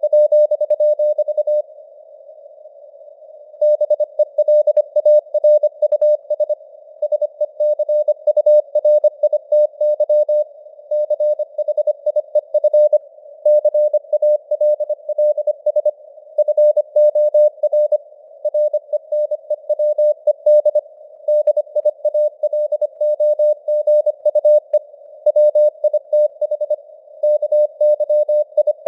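Morse code (CW) sent at 25 words per minute as a single pure mid-pitched tone, keyed rapidly on and off in dots and dashes over a thin bed of simulated radio hiss. It breaks off for about two seconds near the start, then sends on.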